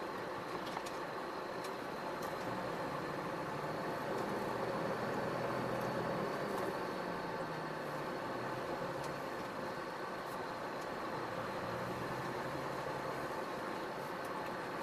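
Iveco Stralis truck's diesel engine running steadily at low revs, briefly a little louder a few seconds in.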